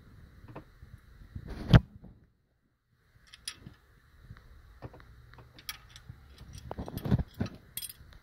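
Metal hand tools clicking and clinking on a Detroit DD15's valvetrain during a valve and engine-brake lash adjustment: irregular sharp clicks and knocks. There is a loud clank about two seconds in, a second of silence, and another heavy knock about seven seconds in.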